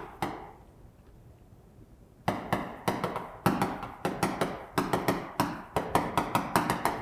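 Chalk writing on a blackboard. A single chalk tap comes near the start, followed by about two seconds of quiet. Then a quick run of chalk taps and strokes follows, several a second.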